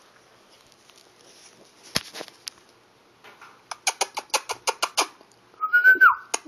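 A fast run of sharp clicks, about ten a second, lasting over a second. Then, near the end, a Shih Tzu puppy gives a short high whimper that falls in pitch.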